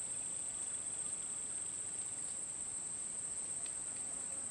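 A steady, unbroken high-pitched drone of insects.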